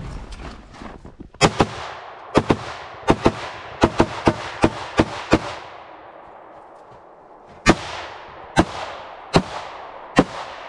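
A string of about sixteen pistol shots: six quick pairs and singles over four seconds starting about a second and a half in, then a pause and four single shots close to a second apart. Each shot is a sharp crack with a short echo trailing off.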